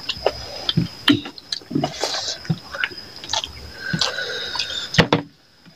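Close-up eating sounds from people eating chicken curry and rice by hand: wet chewing, lip smacks and the squelch of fingers working curry into rice, as a string of short sharp smacks and clicks with a louder one near the end.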